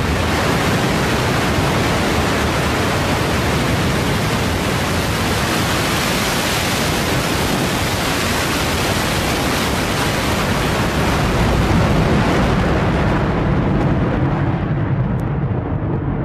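Blue Origin New Shepard's BE-3 hydrogen-oxygen rocket engine at liftoff: a loud, steady rush of noise with a deep rumble. Near the end the high part of the roar fades as the rocket climbs away, leaving mostly the low rumble.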